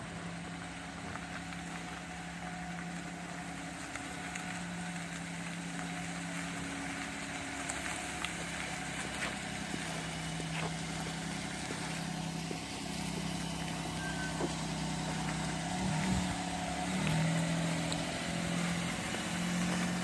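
Suzuki Lapin's three-cylinder kei-car engine idling steadily through its freshly repaired muffler, the engine note shifting slightly in pitch near the end.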